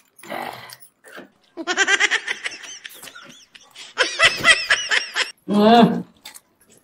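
A woman laughing in quick, repeated giggles, in two runs: about a second and a half in and again about four seconds in, followed by a short voiced sound near the end.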